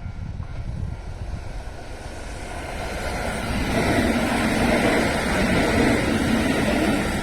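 Kintetsu electric train running past over a level crossing, its rumble growing louder and peaking about four seconds in.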